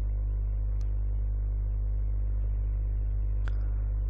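Steady electrical mains hum with a buzz of evenly spaced overtones, with two faint ticks, one about a second in and one near the end.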